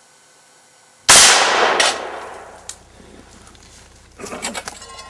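A single rifle shot of a 5.56×45 mm M855 steel-core round, fired at a steel armour plate, about a second in, with a long echoing decay.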